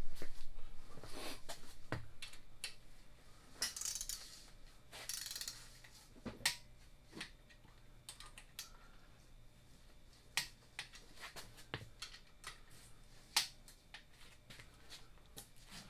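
Scattered light metallic clicks and taps of bolts and a hand wrench being worked on a bare Ford 5.4 V8 engine block, irregular and a second or more apart, with a couple of short rustles about four and five seconds in.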